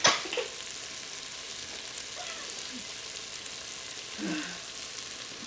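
Diced onions and jalapenos sizzling steadily in an Instant Pot on sauté mode. A brief human vocal sound comes right at the start and again about four seconds in.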